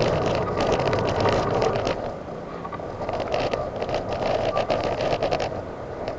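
Electric wheelchair on the move: a steady motor whine under the rattle of wheels and frame over rough pavement. The clatter comes in two stretches, the second starting about three seconds in.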